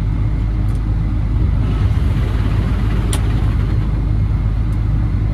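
8120 combine running steadily under load, a constant low engine and machinery hum with a couple of faint clicks.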